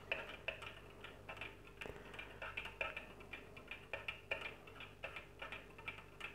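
A metal teaspoon stirring coffee in a small stainless-steel cezve (Turkish coffee pot), clicking lightly against the pot's inside wall at about three uneven taps a second.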